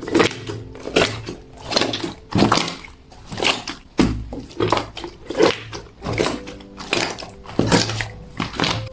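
Ultra-smooth, watery 'fake water' silken-tofu-style slime squeezed and pressed by hand, a wet squishing that repeats about twice a second.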